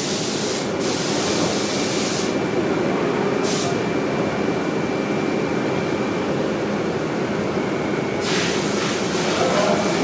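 Steady workshop machinery noise with a faint high tone running through it, broken by short bursts of hissing air: once at the start, once about three and a half seconds in, and a longer one near the end.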